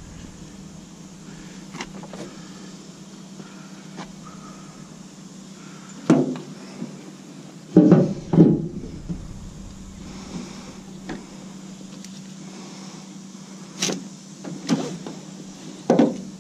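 A handful of sharp knocks and clunks: one about six seconds in, a heavy double clunk near the middle, and three more near the end, over a steady low hum.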